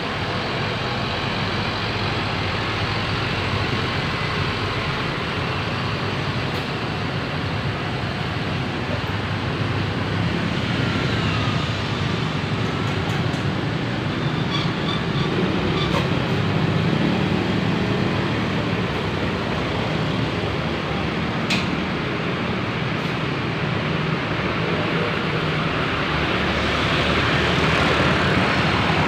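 Roadside traffic noise: vehicles passing steadily, with the sound swelling near the end as a louder vehicle comes by.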